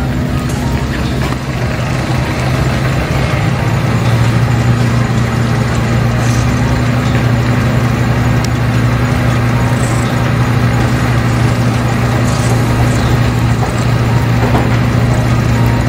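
Steady low hum of an idling engine, with a slight drop in pitch about three seconds in and a few faint clicks over it.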